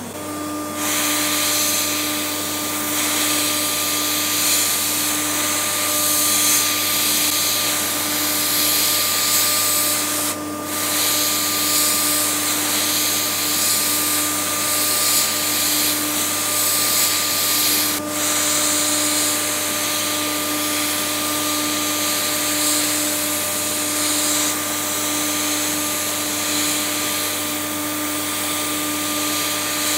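Multicam 3000 CNC router spindle running at a steady 18,000 rpm, a constant hum with overtones, as a small end mill cuts PEEK plastic, over a steady loud hiss.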